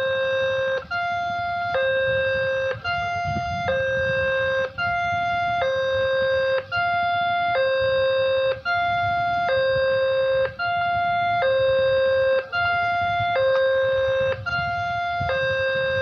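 Railway level-crossing warning siren sounding: an electronic two-tone signal that switches between a lower and a higher pitch about once a second, with a brief break at each change.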